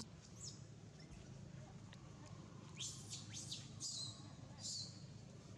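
A handful of short, high-pitched chirping calls with quick pitch sweeps, bunched together about three to five seconds in, faint over a low steady background.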